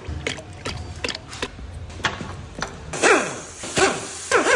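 Hand tools clicking and knocking on car parts during gearbox and clutch removal. From about three seconds in, loud cries falling in pitch come in, one early and one near the end, louder than the tool noise.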